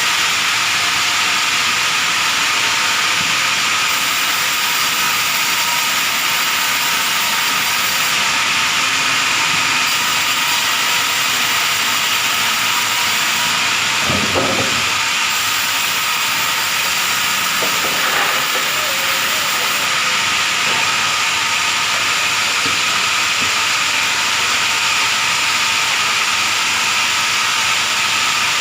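Sawmill machine running steadily: a constant loud hiss with a fixed whine, unchanged throughout.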